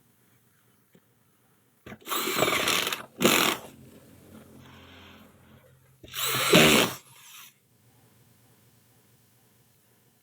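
A hand-held power drill or electric screwdriver running in three short bursts: about a second long two seconds in, a brief one just after, and another about six seconds in.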